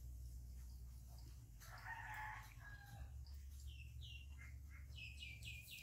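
A rooster crowing faintly about two seconds in. It is followed near the end by a run of short, high, falling chirps, all over a low steady hum.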